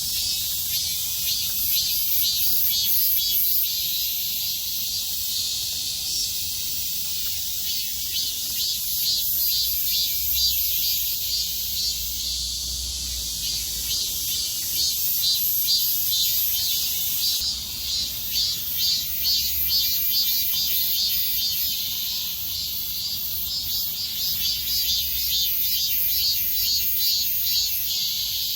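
A chorus of summer cicadas singing: a dense, high-pitched buzz made of fast pulses.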